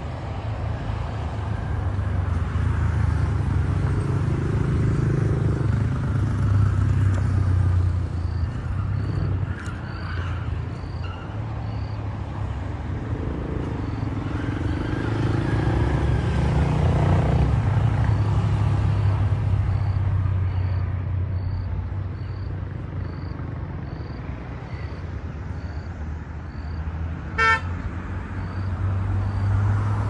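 A low rumble that swells and fades. From about a third of the way in, an insect's faint high chirp repeats about once a second. Near the end comes one short car horn toot.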